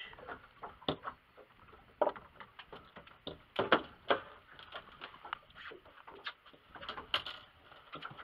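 Irregular knocks, taps and scrapes of a rope being handled against a small fibreglass boat's gunwale and deck, with the loudest bumps about three and a half to four seconds in.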